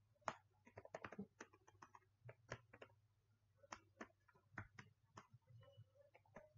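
Faint, irregular clicking of computer keyboard keys as code is typed, over a low steady hum.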